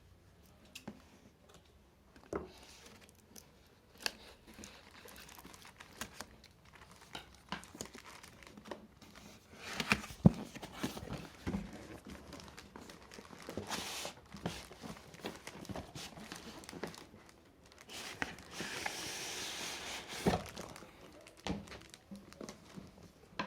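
Keyboard box and its packaging being opened by hand: crinkling and tearing, with scattered knocks and a steady rustle for about two seconds near the end.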